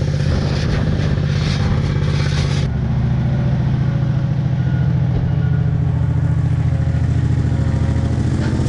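Engine of construction machinery running steadily at a constant pitch, with no revving.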